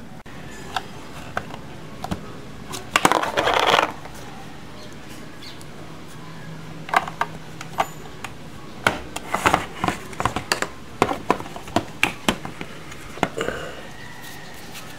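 Hard plastic parts of a toy play-dough extruder car clicking and knocking as it is handled and its knob turned, with a short scraping rattle about three seconds in and a dense run of clicks in the second half.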